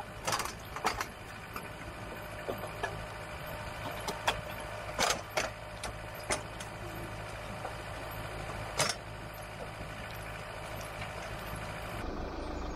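Several sharp metallic clanks and knocks as steel towing-dolly parts are handled and set down, over the steady hum of an idling vehicle engine.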